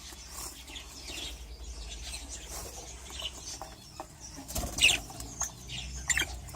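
Budgerigars in an aviary chirping lightly, with a couple of louder bursts of wing flapping near the end.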